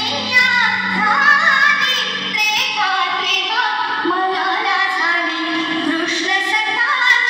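Recorded song playing: a high voice sings a bending melody over instrumental backing, with little bass.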